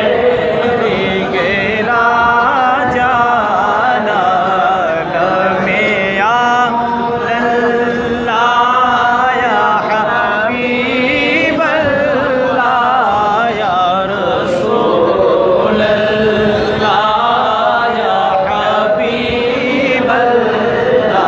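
A man singing an Arabic naat unaccompanied into a microphone, his voice amplified through a PA system in a large hall. He sings long, wavering, ornamented phrases without a break.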